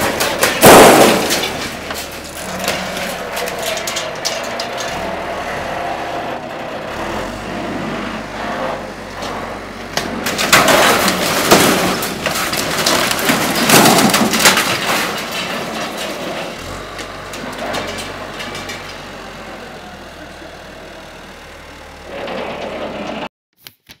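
Backhoe loader's diesel engine running while its front bucket pushes down and crushes sheet-metal panels and metal grilles, with loud crashes of buckling metal about a second in and again around ten to fourteen seconds in.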